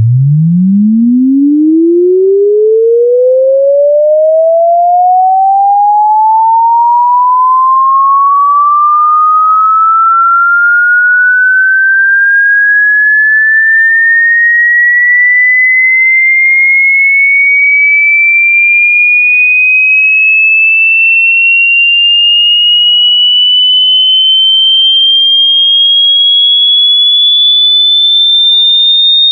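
A single pure electronic sine tone sweeping continuously upward in pitch, from a low hum to a high whine, rising quickly at first and then more slowly.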